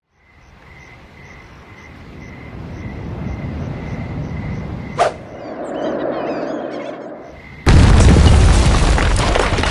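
Title-sequence sound design: a rumble swells up from silence with a faint regular beeping about twice a second, a sharp snap about five seconds in, brief chirping glides, then a sudden loud, dense burst of noise near the end.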